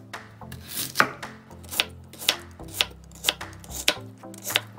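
Kitchen knife slicing a peeled daikon radish into thin half-moons on a wooden cutting board, each cut ending in a sharp knock of the blade on the board, about two a second.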